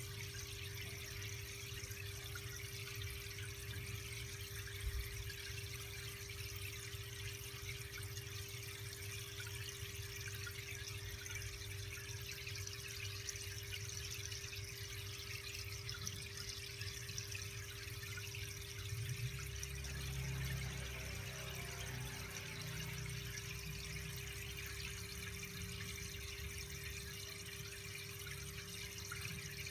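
Aquarium filter and air line running: a steady trickle of water with a constant hum.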